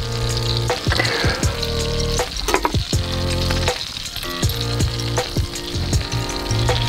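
Butter and a Big Mac sizzling in a hot sandwich maker pan over a campfire, with a few sharp knocks as the burger is handled and a steel cup is set over it.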